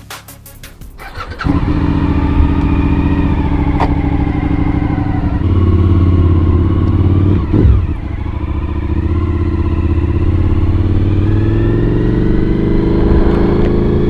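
Suzuki V-Strom 1000 XT's V-twin engine, fitted with an Akrapovič exhaust, running under way as the bike pulls off and accelerates at low speed. It comes in suddenly about a second and a half in, dips briefly in pitch about halfway, then climbs steadily.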